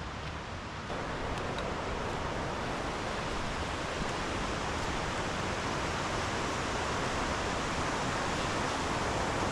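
Steady rush of Little Stony Creek's flowing water along the Cascades trail, getting louder in a step about a second in.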